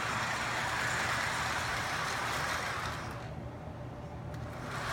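Lionel O-gauge toy train running on its track, a steady rolling rumble that fades about three seconds in and swells again near the end.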